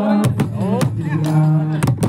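Men's voices chanting a Sufi ratib together, accompanied by hand-struck frame drums (daf) that give sharp beats through the chant.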